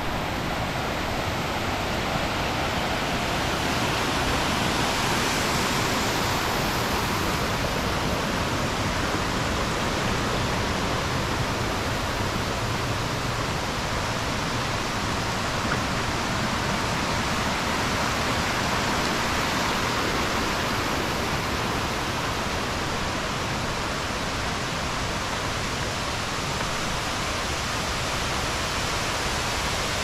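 Waterfall cascading over rock: a steady, unbroken rush of falling water.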